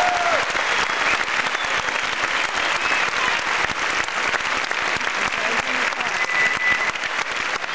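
Theatre audience applauding, a dense steady clatter of many hands clapping, as the last note of the music dies away in the first half second.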